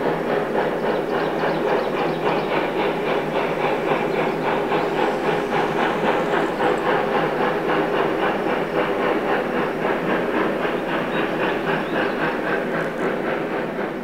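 Steam locomotive running at speed, with a quick, even beat of exhaust and wheel sounds, easing off slightly near the end.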